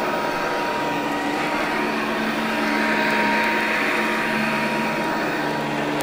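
1974 Eureka PowerTouch Cordaway upright vacuum cleaner running steadily as it vacuums carpet: a fairly quiet motor hum with a thin, steady high whine.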